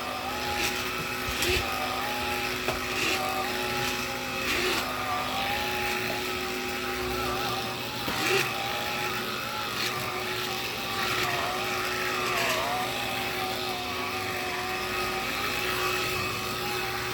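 Black & Decker cordless lithium pet stick vacuum running steadily while vacuuming floors, its motor whine wavering slightly, with occasional short knocks.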